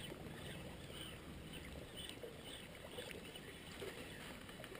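Quiet ambience on an open fishing boat on a lake: faint water lapping against the hull, with small scattered ticks and splashes.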